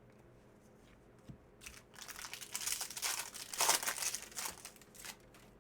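Plastic-foil trading card pack wrapper being torn open and crumpled: a few crackles, then a burst of crinkling that swells, peaks about two thirds of the way in and dies away near the end.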